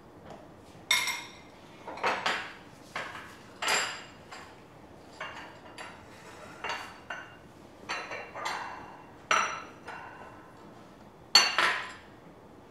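Metal tongs and a serving spoon clinking and clattering against ceramic plates and a bamboo steamer as steamed pearl balls are lifted out and set down. The clinks come irregularly, about one a second, and the loudest is near the end.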